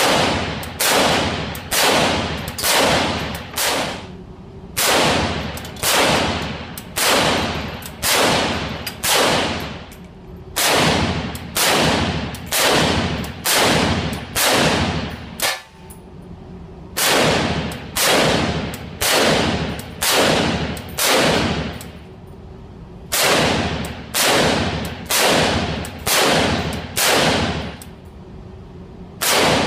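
AKM-pattern rifle in 7.62×39mm fired semi-automatically in strings of about six shots, a little under a second apart, with short pauses between strings. Each shot trails off in a fading echo.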